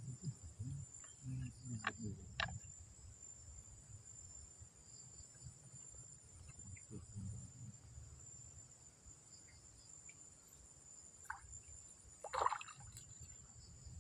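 Faint, steady high-pitched insect chorus, like crickets, with a low rumble beneath it. A few soft clicks come in the first couple of seconds, and a brief louder knock or rustle comes near the end.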